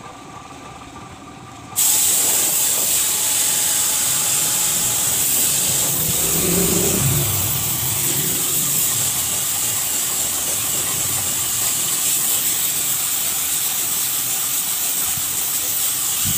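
Compressed-air paint spray gun spraying paint onto a motorcycle alloy wheel rim: a loud, steady hiss that starts abruptly about two seconds in.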